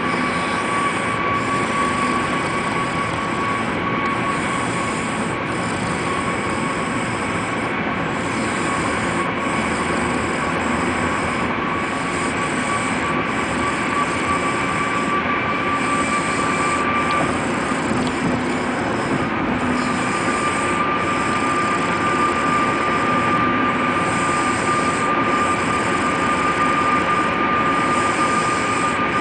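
Steady travel noise inside a moving vehicle: a constant hiss and rumble with a steady high whine that drops out about seventeen seconds in and returns a little higher a few seconds later. No snoring stands out.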